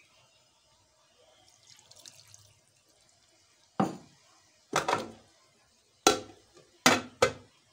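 Aluminium lid being set on an aluminium cooking pot: a run of sharp metallic clanks with short ringing tails, starting about four seconds in, as the pot is covered.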